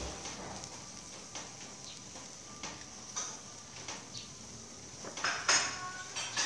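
Metal tongs clicking and scraping against a wire grill grate while pork ribs are turned over charcoal. There are scattered light clicks, then a few louder sharp clicks about five seconds in, over a faint steady high hiss.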